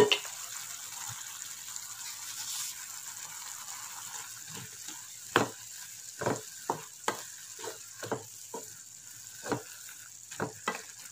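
Wooden spatula stirring chunks of jackfruit and mango in a simmering non-stick pan: irregular knocks and scrapes against the pan from about four seconds in, over a steady hiss from the simmering curry. A brief clatter right at the start as the glass lid comes off.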